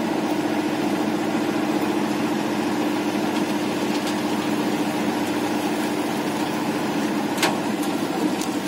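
Tractor's diesel engine running steadily under load while it drives the hydraulics that tip a trolley laden with heavy logs. A short sharp knock comes near the end.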